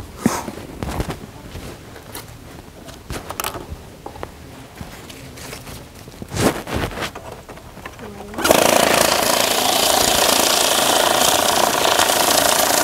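Electric banknote counting machine starts suddenly about two-thirds of the way in and runs loud and steady. Before it starts there are only a few scattered clicks and taps of handling.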